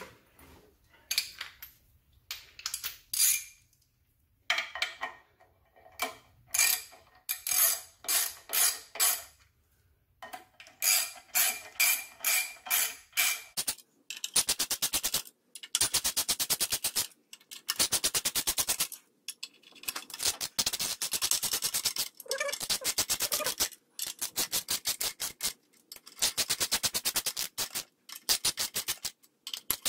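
Socket ratchet clicking as clutch pressure plate bolts are run in, in short groups of strokes at first; from about fourteen seconds in the clicking comes in long, fast runs.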